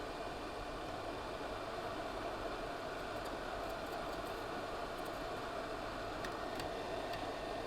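Hot air rework gun blowing steadily onto the HDMI port's solder pins to melt them, an even airy rush, with a few faint ticks partway through.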